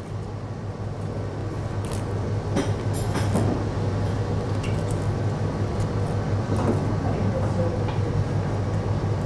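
Steady low mechanical hum and rumble of a commercial kitchen, growing slightly louder over the first few seconds, with a few faint clicks and scrapes of a knife filleting a flatfish on a plastic cutting board.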